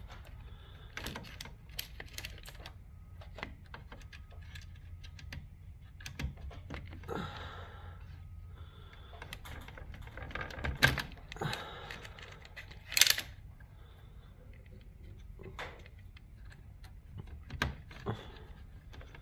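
Wires and the plastic gear housing of a garage door opener being handled and worked loose by hand: scattered light clicks and rattles of plastic, with two louder, sharper clicks about 11 and 13 seconds in.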